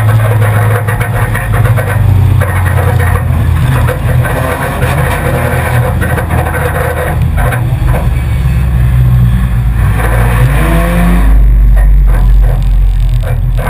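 Four-cylinder enduro race car's engine running hard at speed, heard from the car itself, with scattered knocks and rattles over it. Its pitch climbs briefly about eleven seconds in as it accelerates.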